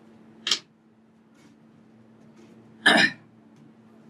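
A man clears his throat once, briefly, about three seconds in. A faint sharp click comes half a second in, over a steady low electrical hum.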